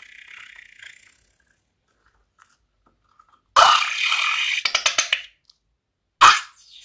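Slime squeezed out through the neck of a rubber balloon into a bowl: a loud, noisy squirt of a second and a half about three and a half seconds in, with a crackle of small clicks, and a shorter burst near the end.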